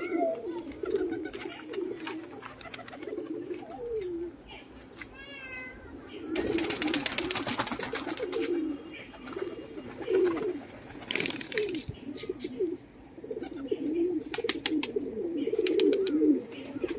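Domestic pigeons cooing, several birds overlapping almost without pause. About six seconds in there are a couple of seconds of rustling noise, and a shorter burst comes around eleven seconds.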